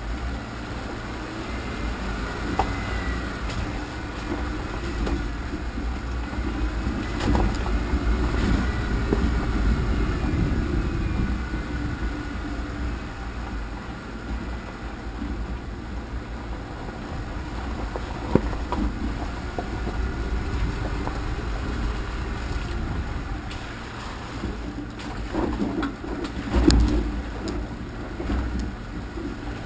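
Off-road vehicle's engine running and its body rumbling as it crawls over a rough, muddy trail, with a sharp knock about two-thirds of the way through and a louder thump near the end.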